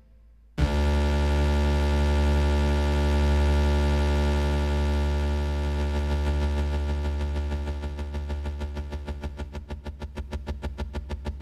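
Electronic synthesizer drone from a live-electronics rig, starting abruptly about half a second in as a dense, many-layered sustained tone with heavy bass. From around eight seconds in it breaks into a fast, even pulsing.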